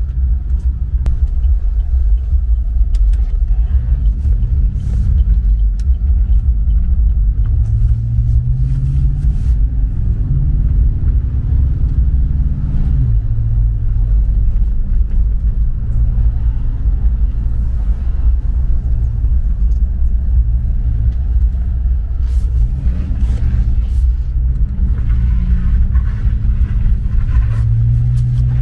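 Cabin sound of a 2016 Chevrolet Silverado 1500 pickup being driven: a steady low road rumble under the engine note. The engine note climbs about eight seconds in, drops sharply about thirteen seconds in, and climbs again near the end.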